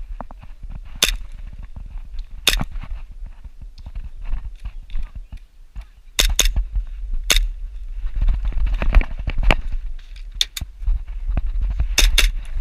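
Airsoft guns firing irregular single shots and quick pairs, each a sharp snap, over a low rumble that gets louder about halfway through.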